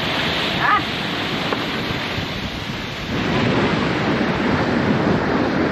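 Wind buffeting the microphone over the rush of water along a sailboat's hull while it sails, briefly louder from about three seconds in. A short high squeak or chirp sounds under a second in.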